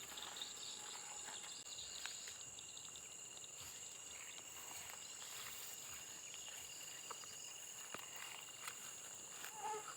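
Steady high-pitched chirring of crickets or other insects, with scattered faint clicks and a brief pitched call near the end.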